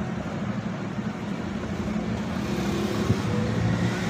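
Steady low background rumble of motor traffic.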